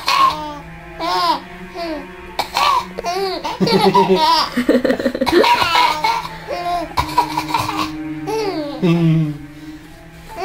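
Four-month-old baby laughing: repeated high, squealing giggles in short bursts, one after another.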